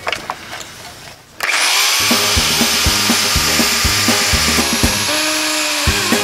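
A circular saw cutting through a softwood board. It cuts in sharply about a second and a half in, with a high whine that rises quickly and then holds steady under the loud rasp of the blade in the wood. Background music with a steady beat plays underneath.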